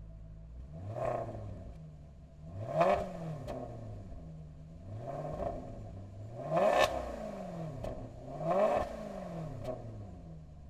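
Maserati Quattroporte S's 4.7-litre V8 blipped five times from idle through its quad exhaust. Each rev rises and falls back quickly, the later ones harder, with a few short pops as the revs drop before it settles back to idle.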